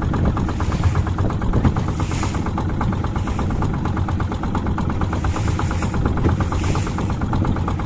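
Small boat engine running steadily with a fast, even pulse.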